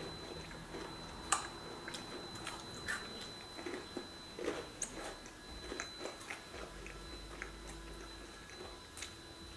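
Children chewing and crunching pieces of a chocolate snack: scattered, irregular small crunches and mouth noises, with one sharper crunch about a second and a half in.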